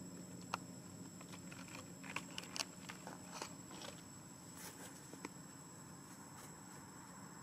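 Faint, irregular clicks and crackles, clustered between about two and four seconds in, over a steady low hum and a thin, steady high-pitched tone.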